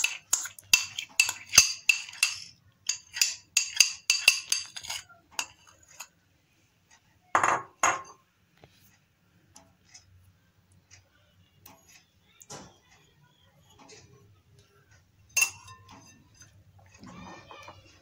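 Utensil scraping and clinking against glass dishes as soft vanaspati shortening is scooped into a glass bowl. There is a quick run of clinks and scrapes for the first five seconds or so, then two louder knocks about seven and a half seconds in, and a few scattered clicks after that.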